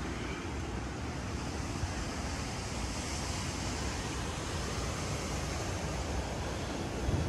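Steady rushing of hurricane wind and rain, with wind buffeting the phone's microphone and a stronger gust rumbling in near the end.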